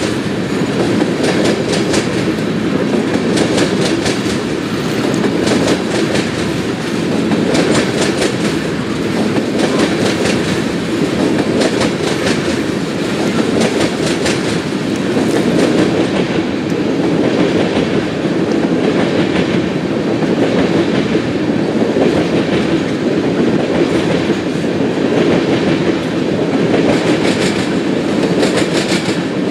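Freight train of tank cars rolling past: a steady rumble of the cars with repeated clacking of wheels over the rail joints.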